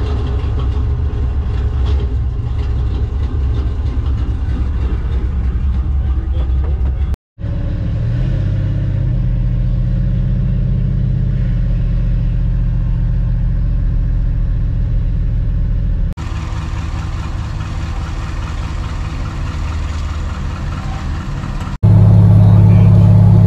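Small-block V8 engine of a 1991 Chevy S-10 pickup running steadily, heard from inside the cab in several short clips with hard cuts between them. The last clip is the loudest, a highway cruise.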